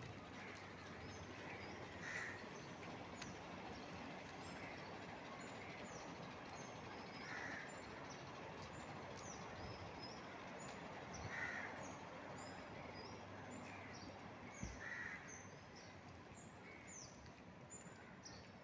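Crows cawing now and then, single caws a few seconds apart, over a steady twitter of many small birds giving short high chirps.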